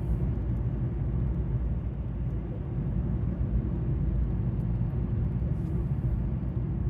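Steady low rumble of a running car.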